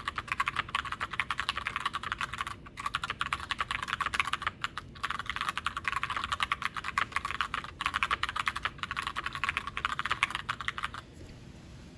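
Fast typing on a Glorious GMMK White Ice TKL mechanical keyboard with Gateron Brown tactile switches: a dense run of key clacks broken by a few short pauses, stopping about a second before the end.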